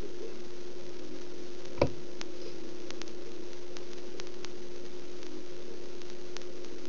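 Steady hiss with a constant low hum, and one sharp click a little under two seconds in.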